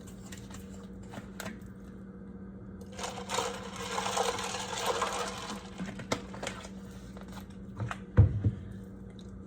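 Coffee machine brewing: a steady hum, with a hissing, spluttering stretch a few seconds in. A few light clicks, and a thump near the end.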